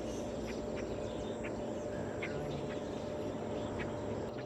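Outdoor ambience: a steady background hum with scattered short bird chirps.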